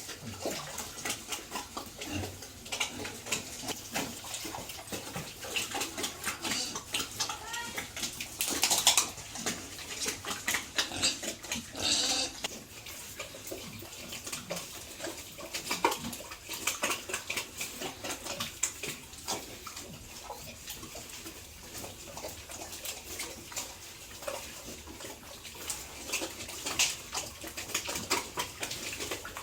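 Pigs eating wet feed, a dense run of wet chomping and slurping smacks, with louder bursts about 9 and 12 seconds in.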